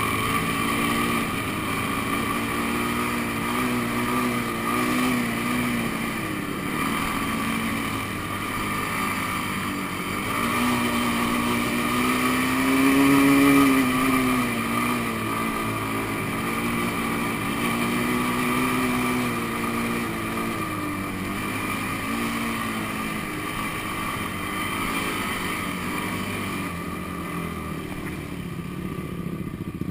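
Honda sport ATV engine running as it is ridden across sand, its pitch rising and falling with the throttle and climbing highest about thirteen seconds in.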